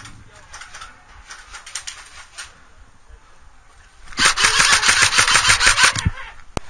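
Airsoft rifle firing a rapid full-auto burst close to the microphone, starting about four seconds in and lasting about two seconds, followed by a single sharp click.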